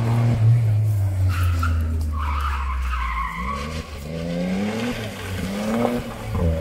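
Rally car engine at high revs, its pitch climbing and dropping several times as it accelerates and shifts up through the gears.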